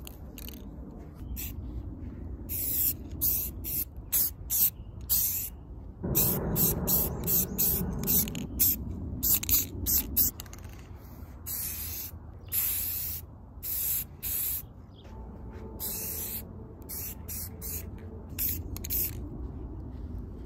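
Aerosol spray-paint can hissing in many short bursts, some brief and a few about a second long, as paint is sprayed onto a bicycle frame; the bursts stop near the end.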